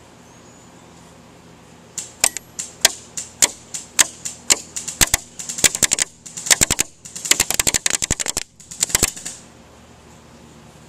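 JG G36K electric airsoft rifle firing 0.23 g BBs at a target 25 yards away, heard as sharp cracks: single shots about three a second starting about two seconds in, then faster strings of rapid fire, stopping a little after nine seconds.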